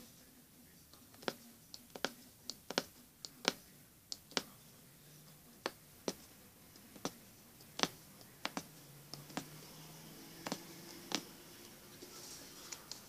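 Punch needle stabbing in and out of fabric stretched taut in a wooden embroidery hoop, making sharp clicks at an uneven pace of one or two a second.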